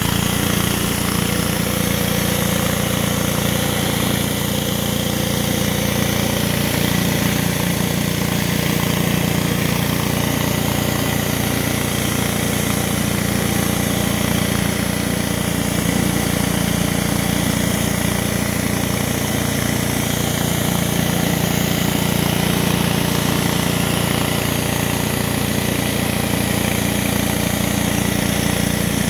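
Pressure washer running steadily while an 18-inch RIDGID surface cleaner is pushed over concrete, its spinning spray jets hissing against the slab under the hood.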